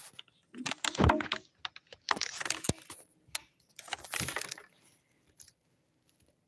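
Handling noise on the recording device's microphone: a few short bursts of rubbing and clicking as the phone or camera is touched and moved.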